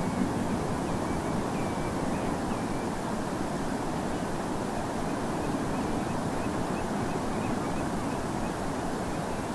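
Steady noise of distant North Sea surf, with a string of faint, short oystercatcher calls piping high above it.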